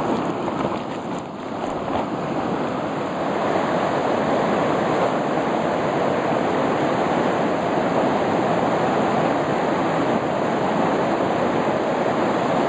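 River water rushing over rapids, a steady rush.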